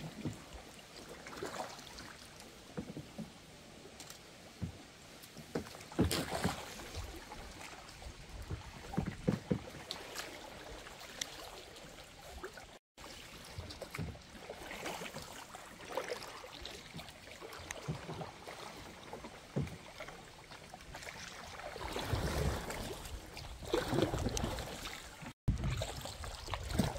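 Kayak paddling: paddle blades dipping and splashing in the water, with scattered knocks of paddle on hull. A low rumble rises for a few seconds toward the end.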